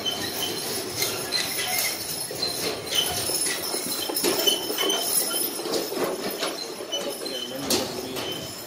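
Heavy team of draft horses walking past in show harness: the metal harness fittings jingle and clink, with hoofbeats among them.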